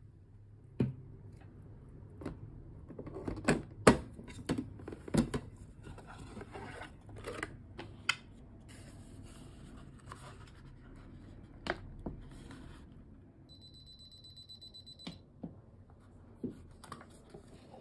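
Handling a Nissin Cup Noodle home vending machine and paper noodle cups: a string of sharp plastic clicks and knocks with some paper rustling, then a steady electronic beep for about a second and a half, followed by a few more clicks.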